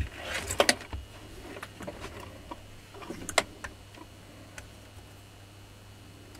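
Irregular small clicks and knocks of plastic and metal parts being handled as a brush-holder ring is fitted onto the motor end of a Makita rotary hammer's housing, the loudest clicks about half a second in and again around three and a half seconds.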